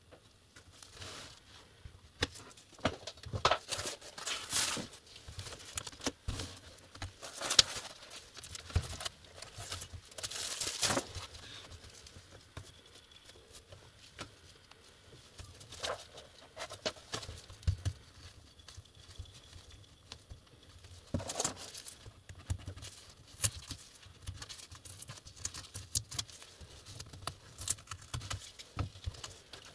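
Irregular clicks, scrapes and rustling from gloved hands working on a laptop's screen assembly, prying off the plastic bezel and handling the LCD panel. The sounds come in clusters and are busiest in the first half.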